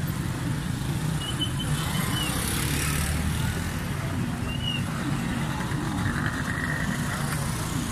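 Urban road traffic: motorcycle and rickshaw engines running steadily, heard from a slow-moving vehicle, with a few short high chirps.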